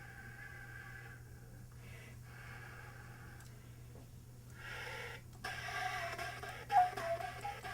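Quiet room hum for the first few seconds, then breathy air blown through a flute with faint pitched traces and a sharp click about seven seconds in, as the playing starts.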